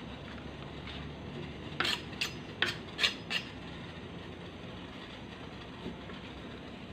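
Kitchen knife cutting a peeled pineapple on a wooden chopping board: five sharp knocks of the blade on the board in quick succession about two seconds in, then one faint knock near the end.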